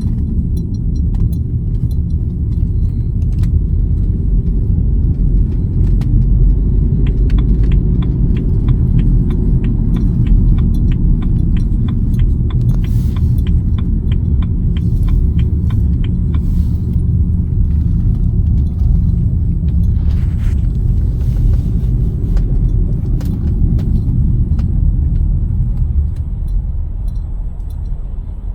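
Steady low road and engine rumble inside a moving car's cabin. A run of quick, even ticks sounds for several seconds about a quarter of the way in.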